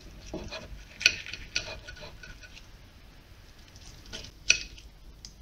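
Knife and fork cutting into an oven-roasted chicken leg quarter on a plate: small scraping and crunching sounds with scattered clinks of cutlery on the plate, two of them sharp, about a second in and near the end.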